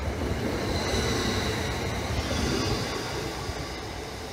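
Northern passenger train running past along the platform, its wheels rumbling on the rails, with a high squealing whine for about two seconds in the middle. The noise fades near the end as the train moves away.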